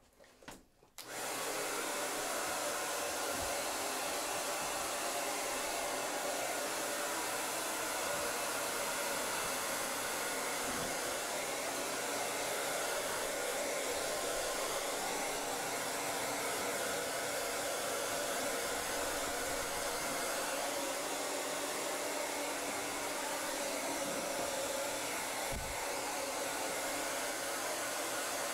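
Handheld hair dryer switches on about a second in and runs steadily, blowing on a wet dog's coat.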